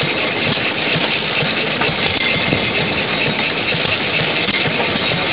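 Antique gasoline engines running on display, a steady, rapid run of engine beats with no let-up.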